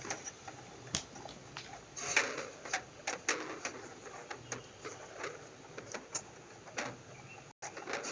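Long-nose pliers and hands working the plastic retaining pegs out of a washing machine's shock absorber mounting: irregular clicks, knocks and short scrapes of metal on plastic, the loudest about two seconds in.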